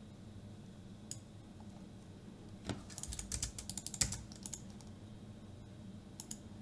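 Computer keyboard typing: a single keystroke about a second in, a quick run of keystrokes around the middle, and a couple more near the end, over a faint steady room hum.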